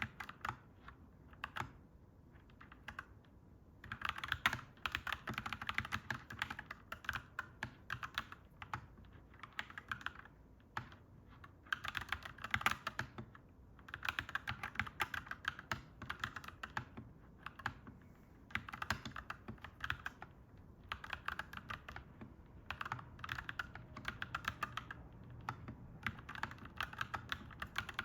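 Clacky mechanical keyboard being typed on, in quick runs of keystrokes a few seconds long with short pauses between them.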